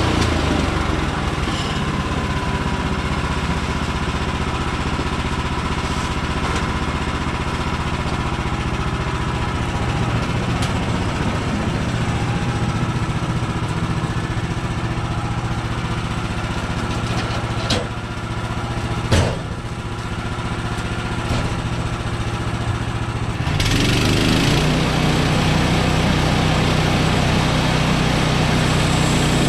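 Woodland Mills HM130MAX portable sawmill's gas engine running steadily. The engine note changes about 23 seconds in, and there are two sharp knocks shortly before that.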